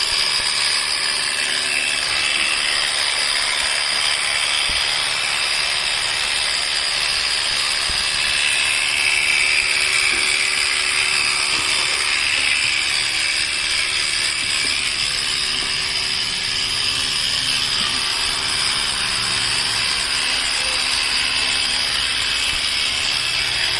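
Electric sheep-shearing clippers running steadily while trimming a sheep's wool: a continuous buzz that does not stop.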